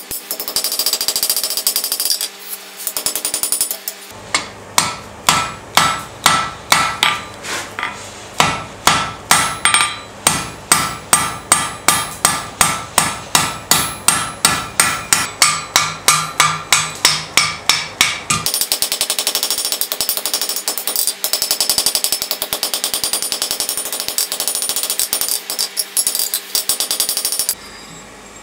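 Hot steel being forged on an anvil with hammer blows. It opens with a quick, dense run of strikes. From about four seconds in, the ringing blows fall evenly at about two and a half a second. From about eighteen seconds another fast, dense run of hammering follows, and it stops shortly before the end.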